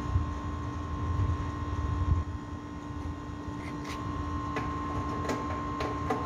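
A steady machine hum with two constant tones over a low rumble. From about four seconds in, a series of sharp metallic clicks and taps comes from hand work on an air-conditioner condenser unit.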